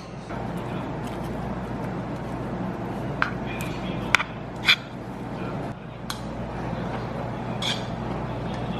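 Restaurant table ambience: indistinct background chatter, with a few short clinks of cutlery or dishes about three to five seconds in.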